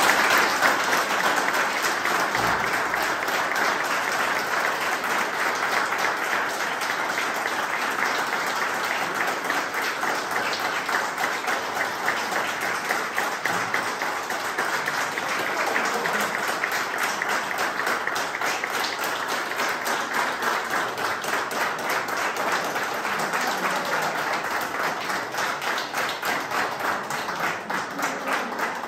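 A small crowd applauding in a room: a dense, steady patter of many hands clapping, breaking up into fewer, more distinct claps near the end.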